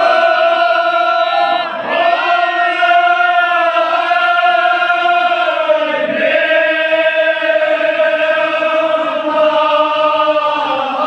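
Men's voices chanting a line of Kashmiri marsiya in long, drawn-out held notes, with brief breaks about two and six seconds in.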